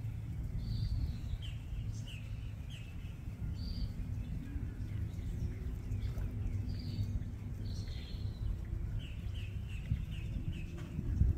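Unseen birds chirping in short high notes, some in quick runs of several notes, over a steady low rumble.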